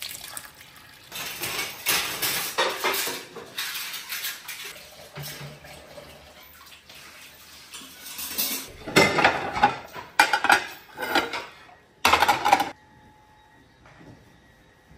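Dishes, pots and cutlery clattering in a kitchen sink as they are washed by hand under a running tap, in irregular bursts, loudest about nine to twelve seconds in, then falling quiet near the end.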